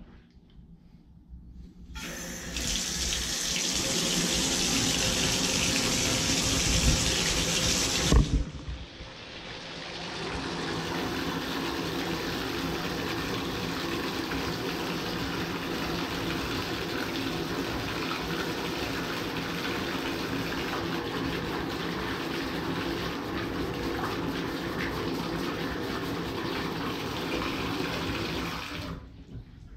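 Water running from a newly installed three-handle tub and shower faucet. A loud hissing flow runs for several seconds and cuts off with a clunk. Water then builds again and runs steadily from the tub spout until it is shut off near the end.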